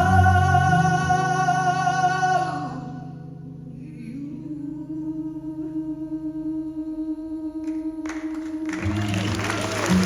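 Live rock band's closing held chord with a long sustained sung note, fading out over several seconds. Audience applause and cheering break out about nine seconds in.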